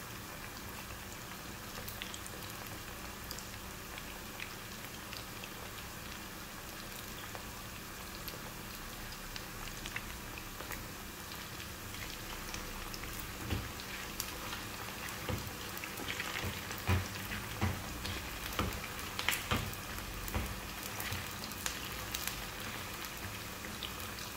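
Cornflour-coated chicken pieces sizzling and crackling steadily in hot oil in a frying pan over a high flame. About halfway through, louder pops and knocks come in as a slotted spatula stirs the pieces in the pan.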